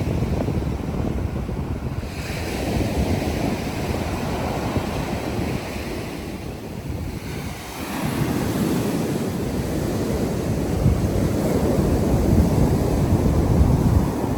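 Sea waves washing onto the beach, with wind buffeting the microphone. One surge comes about two seconds in, and a larger one builds from about eight seconds in toward the end.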